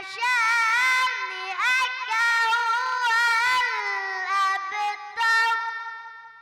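A boy's high voice chanting Quran recitation in long held notes with wavering ornaments, dying away with a lingering echo near the end.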